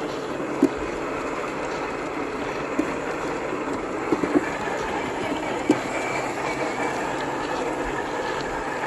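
1/10-scale RC crawler on an MST CFX chassis driving over loose gravel: steady whine of its brushed 540 motor and gears, with the tyres crunching on stones and a few sharp knocks as the wheels strike rocks.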